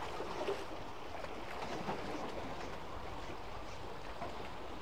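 Steady outdoor sea ambience: wash of the sea and wind noise, with a few faint small clicks.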